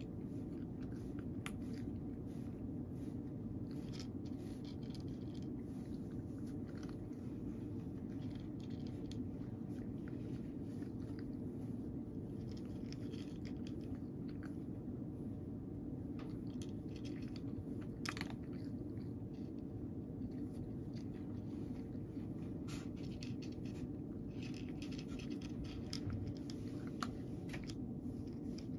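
A cat chewing dry kibble: irregular, crisp crunches scattered through, over a steady low background hum.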